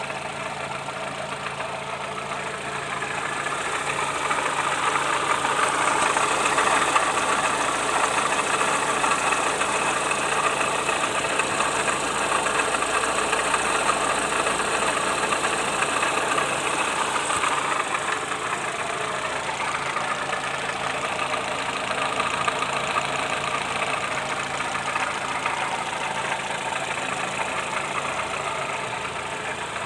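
Car engine running with a persistent knock, which the owner takes to be the fourth piston knocking. It gets a little louder over the first few seconds, then settles and eases slowly.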